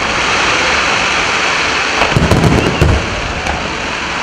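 Wide starmine fireworks display firing fanned comets and mines in rapid succession: a dense, continuous crackling hiss, with a cluster of deep low thumps from launches and bursts about two to three seconds in.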